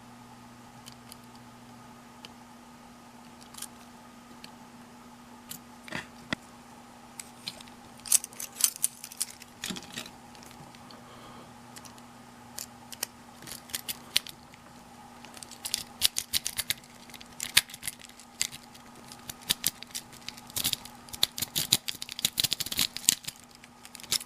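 Small metal picks or jiggler keys clicking and scraping inside a four-pin gun lock, in irregular rattling bursts that get busier from about eight seconds in. A faint steady hum runs underneath.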